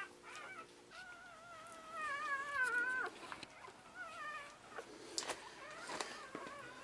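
Newborn poodle puppies crying in high, wavering squeals: a short cry at the start, a long one from about one to three seconds in, then shorter ones, with a couple of sharp ticks near the end.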